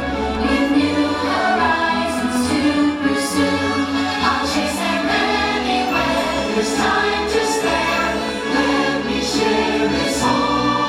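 Fireworks-show soundtrack: a choir singing over orchestral music, with occasional sharp hits.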